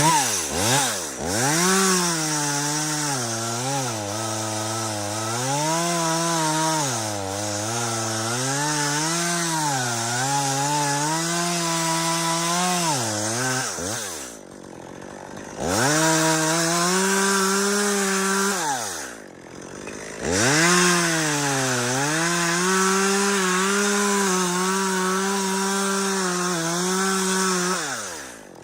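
Chainsaw at full throttle cutting wood, its pitch sagging and recovering as the chain bites under load. It comes in three runs, dropping back between them about halfway through and again just after.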